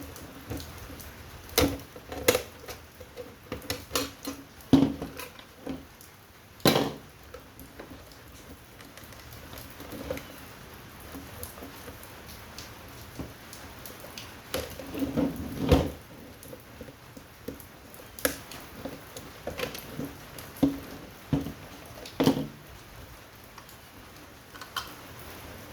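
Irregular knocks, clicks and clatter of metal and plastic parts being handled and pried apart while a wall-mount air conditioner is broken down for scrap, bunched in two busy spells with scattered knocks later. A steady hiss of rain runs underneath.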